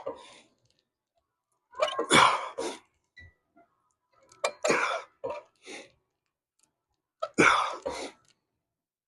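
A man's forceful breaths and grunts of effort as he strains through heavy preacher curl reps: three loud, short bursts about two and a half seconds apart, with silence between.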